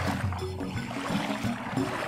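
Background music with a steady low bass note and short repeating notes above it.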